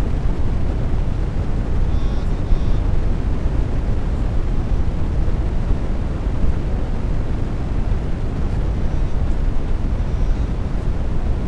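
A steady, loud low rumble of background noise, with no voice, and a faint short high chirp about two seconds in and again near the end.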